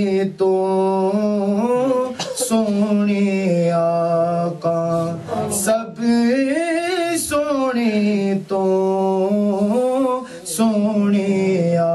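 A man singing a Punjabi naat unaccompanied, with no words in this stretch: long held notes that slide up and down in pitch, with short breaks for breath every few seconds.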